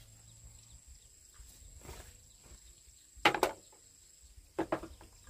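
A few short, loud animal calls in the second half, over a faint steady high-pitched buzz like insects.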